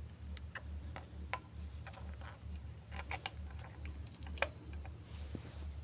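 Light, irregular clicks and taps of small metal parts being handled: Lada Priora hydraulic lifters being picked up and pressed, over a low steady hum.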